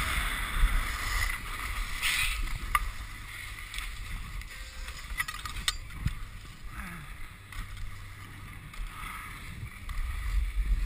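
Wind rushing over a helmet-mounted action camera with the scrape of sliding over packed snow, louder at first and dying down as the rider slows to a stop. A faint low steady hum runs through the middle.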